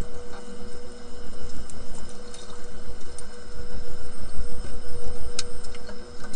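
Saturation diver's helmet at about 100 m depth heard over the diving communications line: rough, water-like bubbling and gas noise that pulses quickly, over a steady electrical hum, with a few sharp clicks.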